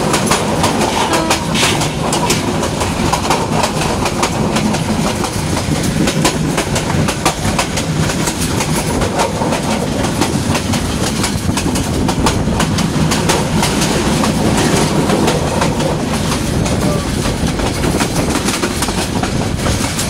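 Meter-gauge passenger train running at speed, heard from aboard a carriage: a steady loud rumble with the wheels clacking over the rail joints.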